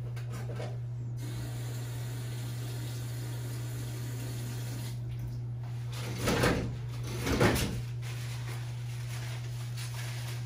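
A steady low hum fills the room, and a little past the middle come two short, loud rushing noises about a second apart.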